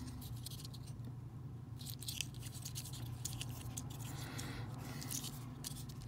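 Fingers handling and turning a small die-cast Matchbox excavator with a plastic base: light, scattered clicks and scratches, over a low steady hum.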